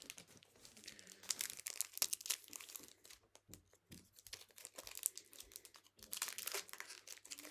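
A Topps Chrome trading-card pack wrapper being crinkled and torn open. It crackles in uneven bursts with small clicks, busiest about a second in and again near the end.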